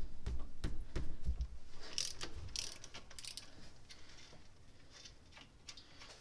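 Socket ratchet clicking in irregular bursts, with light metal clinks, while working at the thermostat housing bolts; the clicking dies down after about three seconds.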